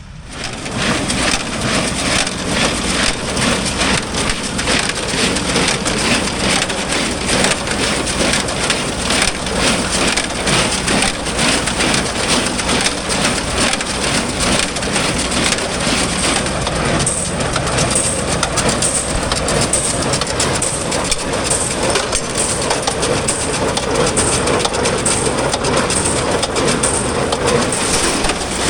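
Small square baler running and packing hay, a loud, dense crackling clatter. From the middle on, a faint beat comes about once a second.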